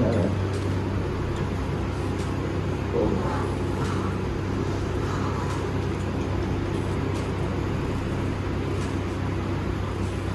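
A steady low hum, with a few faint voice-like sounds about three to five seconds in.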